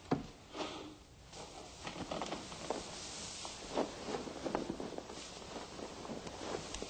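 Light, unhurried footsteps: a handful of soft, irregularly spaced steps.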